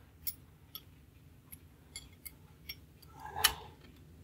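Small metal clicks and taps at irregular intervals as a temporary clamp is fitted over a clock mainspring that is wound too tight, the loudest about three and a half seconds in.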